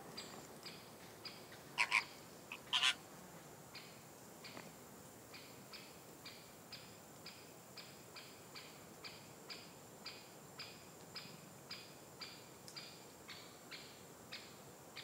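Greater flamingos giving two loud, goose-like honking calls, each a quick double, about two and three seconds in, over a steady series of short high chirps at about two a second.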